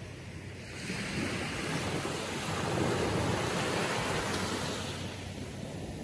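Gentle surf on a calm sea: a small wave washing up a sandy beach, swelling about a second in and ebbing away near the end.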